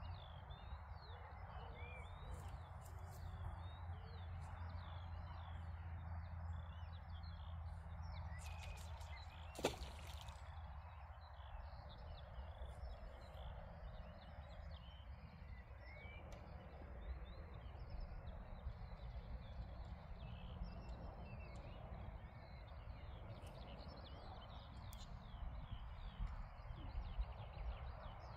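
Small birds chirping and singing on and off over a steady low outdoor rumble, faint overall, with a single sharp click about ten seconds in.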